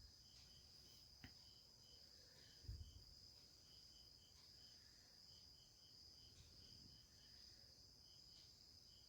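Near silence: faint insect chirping, short chirps repeating in small groups over a thin steady high whine, with a click about a second in and a soft thump near the three-second mark. The ringtone that was about to be played is not heard.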